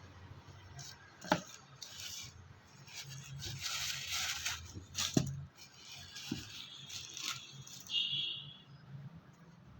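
Handling noise from shoes and their packaging: scattered light knocks and clicks with bursts of rustling, the loudest rustle about halfway through.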